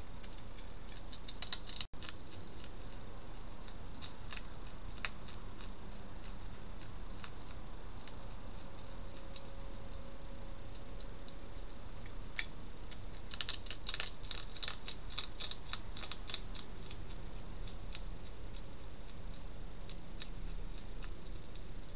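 Hedgehog chewing and smacking food from a plate: irregular quick, sharp clicks, with a dense run of them a little past the middle, over a steady hiss.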